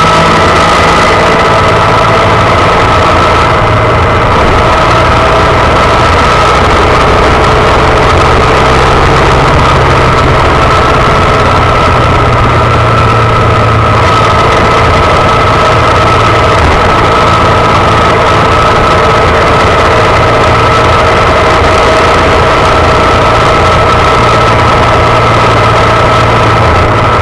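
Honda Monkey minibike's single-cylinder four-stroke engine running steadily at an even pitch, heard loud and close from a handlebar-mounted camera.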